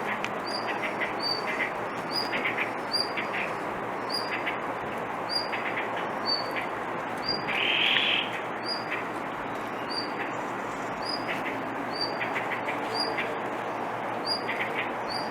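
Blue rock thrush calling over and over in short high chirps, about two a second, in a plain repetitive call rather than a full song. A louder raspy burst comes about eight seconds in, over a steady background hiss.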